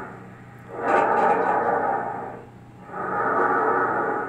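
Recorded bronchial (tracheal) breath sound as heard on auscultation: a strong rushing of air that comes in two breath phases of a little over a second each, separated by short pauses. This is the normal breath sound over the trachea and supraclavicular region.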